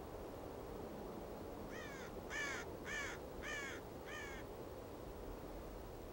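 A crow cawing five times in a row, the calls a little over half a second apart, the first and last fainter. A steady low hiss runs underneath.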